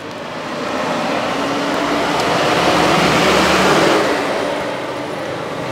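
A motor vehicle driving past close by: its engine and tyre noise swells to a peak about three to four seconds in, then fades.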